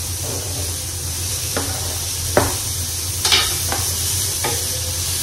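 Tofu frying in a hot pan with a steady sizzle, while a spatula knocks and scrapes against the pan about five times as it is stirred.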